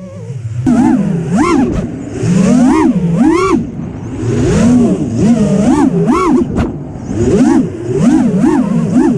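FPV freestyle quadcopter's brushless motors whining, the pitch swooping up and down again and again as the throttle is punched and eased off.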